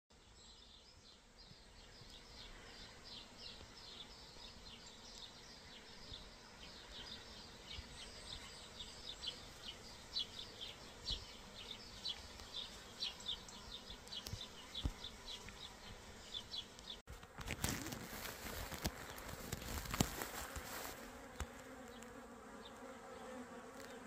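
A swarm of honey bees buzzing as they fly around a hedge, a faint hum that slowly grows louder. About two-thirds through there is a few seconds of noise on the microphone.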